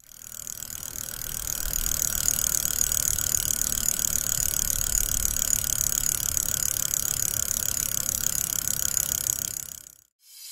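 A steady, fast mechanical buzz of ratcheting pawls, as from a bicycle's freehub while the rear wheel coasts. It fades in over the first couple of seconds and fades out shortly before the end.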